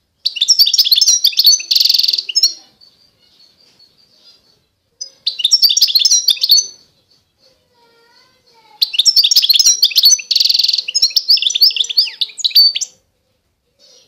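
A finch singing: three bursts of rapid, twittering song with a buzzy trill in the first and last burst.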